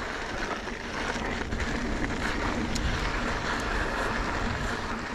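Mountain bike riding up a dirt trail: a steady rolling noise of the tyres on dirt and gravel, with a few small clicks and rattles.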